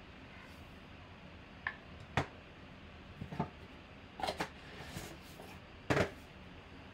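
A cardboard trading-card box being handled: a handful of short taps and papery scrapes as the box flaps are opened and a stack of cards is set down, the two sharpest about two and six seconds in.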